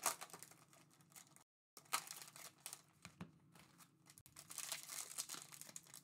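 Foil trading-card pack wrapper being torn open and crinkled by hand, in bursts of crackling rustle, with a brief moment of dead silence about a second and a half in.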